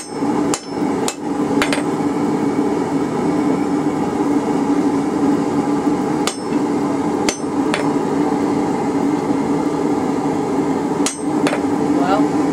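Hand hammer striking hot half-inch rebar on a steel anvil, forging a bend: three quick blows in the first two seconds, a few more about six to seven seconds in, and two near the end. A loud steady hum runs underneath.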